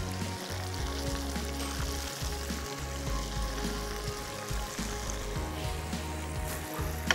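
Batter-coated chicken wings deep-frying in hot oil in a wide pan, a steady sizzle as the pieces are dropped in; background music underneath.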